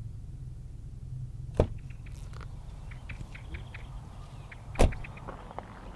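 Car door opened with a sharp click of the latch about a second and a half in, then slammed shut near five seconds in, the loudest sound. Light crunches of stepping out in between, over a steady low hum.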